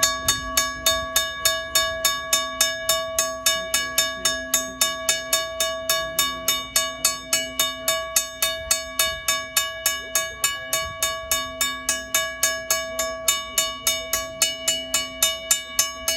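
Chicago Railway Signal & Supply Company Style "U" mechanical railroad crossing bell ringing steadily, its hammer striking about three times a second, each stroke ringing on into the next.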